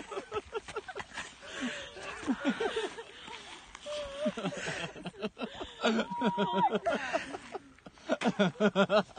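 Wordless emotional voices from a couple in a tight embrace: muffled crying and giggling with wavering, whimpering tones. Near the end comes a quick run of short sob- or laugh-like breaths.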